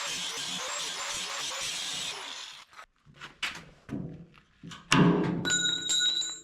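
A chisel is driven against steel welds on a skid steer bucket's tooth bar, making steady, loud metal-on-metal noise for about two and a half seconds. A few separate knocks follow, then a louder ringing, pitched sound near the end as chisels are being broken on the welds.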